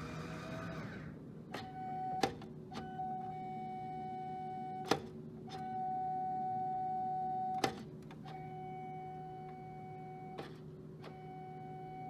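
Glass-front drink vending machine's delivery mechanism whining in five steady runs of about two seconds each, each ending with a sharp click, as it keeps trying to cycle while its delivery door is held by hand. A steady low hum runs underneath.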